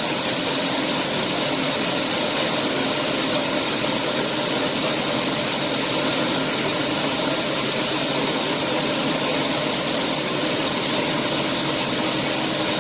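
Claas combine harvester running steadily while unloading, its auger pouring a continuous stream of grain into a grain cart: an even, unbroken machine noise with no letup.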